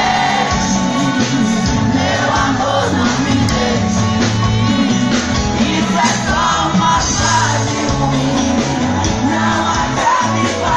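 Live band music with a woman singing into a microphone and the crowd shouting, heard from among the audience.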